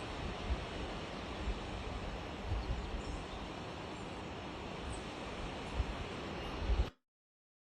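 Steady rushing noise of a waterfall, with gusts of wind bumping the microphone now and then; the sound cuts off abruptly near the end.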